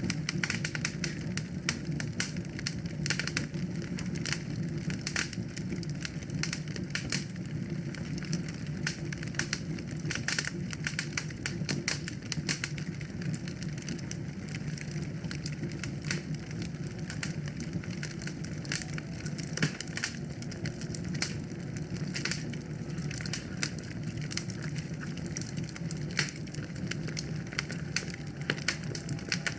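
Wood fire burning in a fireplace: dense, irregular crackles and sharp pops over a steady low rumble of the flames.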